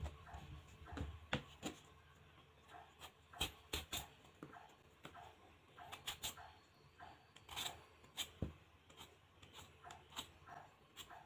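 Vegetable peeler scraping the skin off a raw potato in short, irregular strokes, with some sharper clicks among them.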